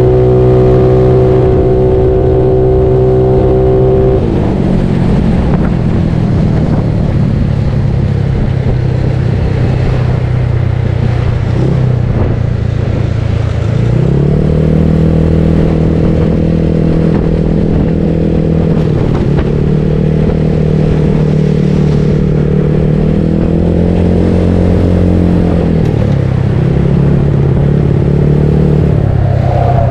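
Bored-up Yamaha Mio Soul scooter's single-cylinder engine running under way, with wind on the microphone. It holds a steady pitch, drops off a few seconds in, climbs back to a steady pitch about halfway through, and eases briefly twice after that.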